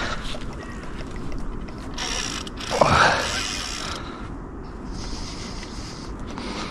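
Fishing reel being cranked and ticking while a large carp is played on the line, with a louder swell of sound about three seconds in.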